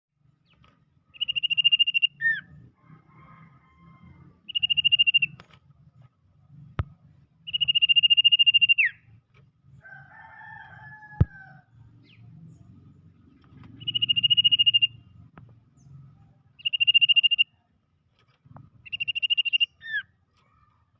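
Bird lure call: six buzzy, trilled notes about a second long each at a steady high pitch, some ending in a quick downward slur. It is played to draw in and provoke sirtu and cipow (common iora). Two sharp clicks fall between the notes.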